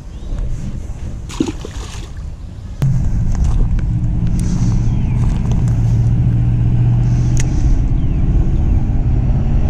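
Road traffic: a steady low drone of car and truck engines with a hum, starting suddenly and loudly about three seconds in. Before it, a quieter stretch with a few faint clicks.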